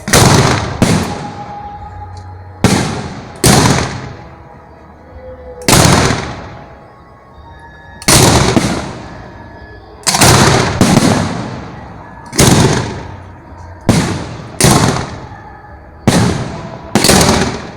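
Fireworks bursting at close range: about fourteen loud bangs, one every second or two and often in quick pairs, each trailing off in a long echoing rumble.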